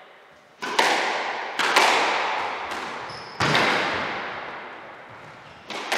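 Rackets striking a ball and the ball hitting the walls of a squash court during a rally: a handful of sharp cracks a second or more apart, each ringing on in the court.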